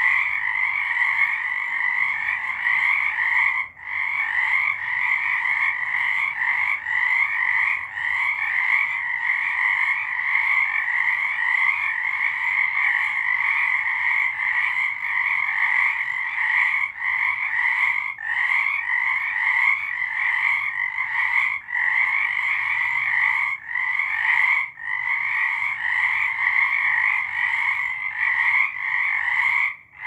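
A dense chorus of many frogs, their pulsing calls overlapping without a break. The whole chorus falls silent for a moment about four seconds in, again near 25 seconds, and once more right at the end.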